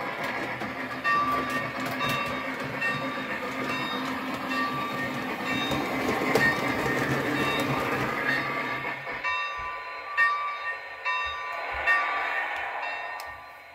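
Lionel Lionchief Plus 2.0 O gauge model steam locomotive running slowly, its onboard sound system playing steam chuffing and a ringing tone that repeats about once a second. Wheels click over the track, and the low rumble drops away about nine seconds in.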